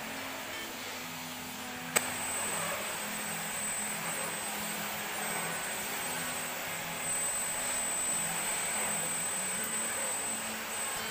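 A household appliance motor running steadily with a rushing noise; a sharp click about two seconds in, after which it runs a little louder with a thin high whine.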